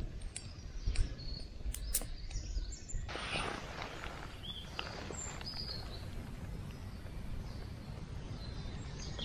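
Sticks knocking and clattering as they are laid onto a small campfire. After about three seconds, steady outdoor wind noise takes over, with a few short bird chirps.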